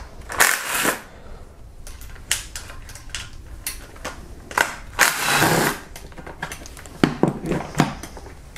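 Tool work on the last valve cover bolts of a Kia 2.4 GDI engine: two short noisy bursts, one just under a second in and one about five seconds in, with scattered metallic clicks and clinks between them, several close together near the end.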